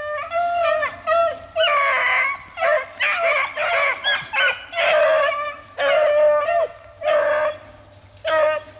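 A pack of beagles baying while running a rabbit. Several voices give long, overlapping calls one after another, thinning out near the end.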